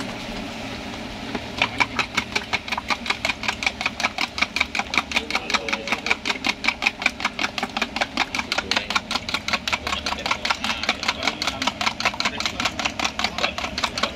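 Eggs being beaten by hand in a plastic jug: a fast, steady clatter of about five strokes a second, starting about a second and a half in.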